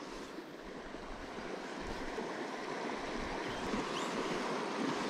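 Steady rushing of a small stream's flowing water, mixed with wind, slowly growing a little louder.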